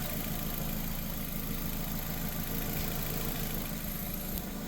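A 2006 Nissan Sentra's 1.8 L four-cylinder engine idling steadily while it warms up with the coolant cap off, so that air can be bled from the cooling system after a water pump replacement.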